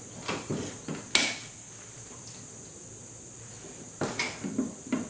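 A wooden machinist's tool chest, an H. Gerstner & Sons with a leatherette covering, being opened. A few short clicks and knocks of its latches and lid come in the first second or so, the sharpest about a second in. Another cluster of knocks comes near the end.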